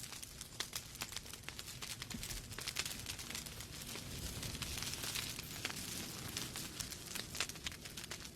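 Wood logs burning in a fireplace, crackling with many irregular sharp pops over a steady hiss of the flames.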